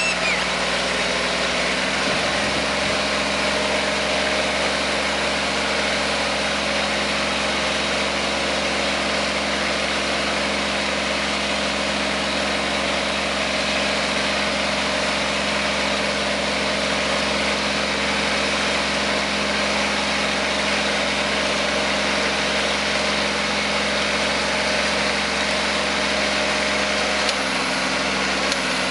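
Kubota compact tractor's diesel engine running steadily while it pulls a ridger through the soil. Its pitch shifts slightly about two seconds in and again near the end.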